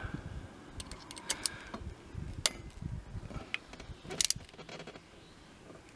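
Scattered small metallic clicks and taps of a screwdriver turning a screw against a nut held in pliers, tightening the mounting bolt of a bicycle brake lever. The clicks cluster about four seconds in.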